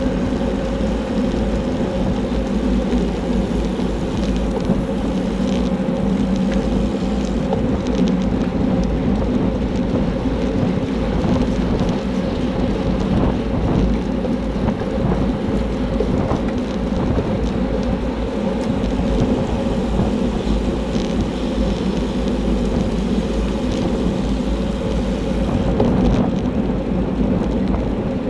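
Wind rushing over a handlebar-mounted camera's microphone on a bicycle moving at race speed, with tyre and road noise. It is a steady, loud, low rush that holds even throughout.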